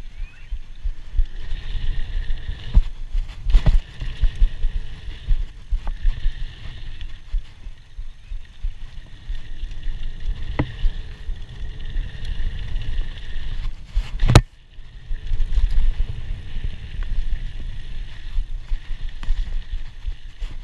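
Scott Scale 960 hardtail mountain bike ridden over dirt rollers and jumps: a rough rumble of tyres on dirt and the bike rattling, with scattered sharp knocks. The loudest, a sharp crack, comes about 14 seconds in.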